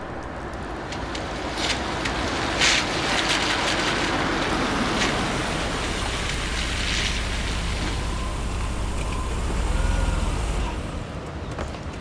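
Car engine and street traffic noise, with a low rumble that builds to about ten seconds in, then drops away quickly. A couple of sharp clicks come in the first three seconds.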